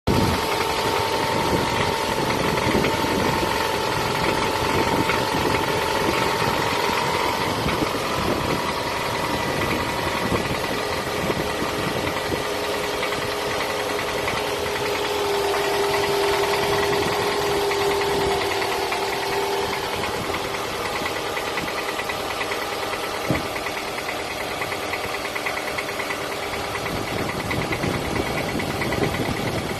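Toyota Camry ACV40's 2.4-litre four-cylinder engine running steadily with a rapid, even knocking that the owner takes for piston slap, a steady whine alongside it.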